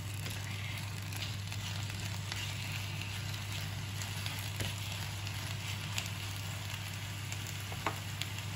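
Chopped purple blewit mushrooms and onion sizzling in olive oil in a frying pan, with the spatula now and then clicking and scraping against the pan as they are stirred. A steady low hum runs underneath.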